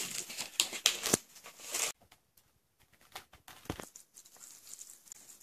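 Plastic cling wrap being peeled off a bowl of soup, crinkling and crackling for about two seconds. Then a few faint clicks and one dull knock.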